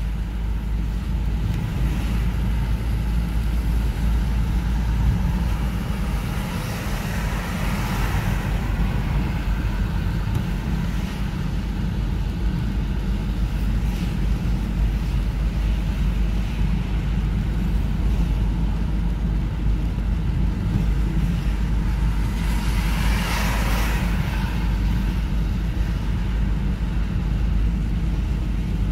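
Car driving on a wet road, heard from inside the cabin: a steady low rumble of engine and tyres with a haze of road and rain noise. A rush of hiss swells up and fades twice, about a quarter of the way in and again near the end.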